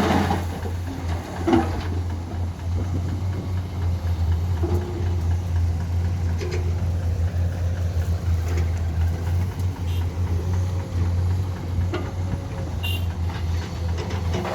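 Heavy earthmoving machinery's diesel engine running steadily with a low hum, with a few short knocks, the loudest about a second and a half in.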